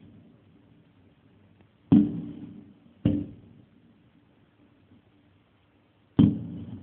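Aerial firework shells bursting in the sky: three booms, about two, three and six seconds in, each dying away in a fading echo.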